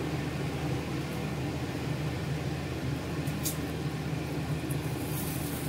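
Steady low mechanical hum, with pancakes sizzling faintly in butter on a non-stick pan; a couple of light scrapes come in the second half as a spatula slides under a pancake.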